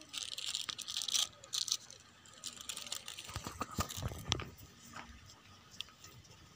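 Crinkling and rustling of plastic packaging with scattered small clicks, and a few dull knocks about halfway through as a benjo and its case are handled.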